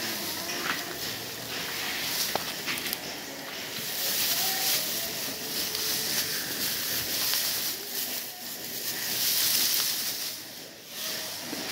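Loose straw rustling as it is shaken out and spread by hand for cow bedding: a continuous crackly hiss that rises and falls in loudness.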